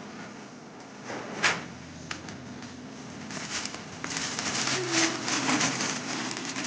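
Shoe-box packaging being handled and crinkling, with a brief sharp rustle about a second and a half in and a longer stretch of crinkling in the second half.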